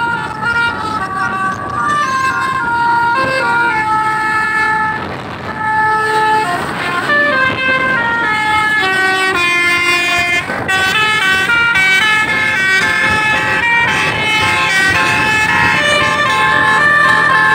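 Tour bus "telolet" horn, a set of musical air trumpets, playing a melody of quick stepped notes over and over, with the bus running underneath.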